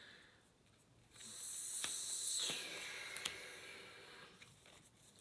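A long exhaled sigh that starts suddenly about a second in and tails off over about three seconds, with a few faint clicks.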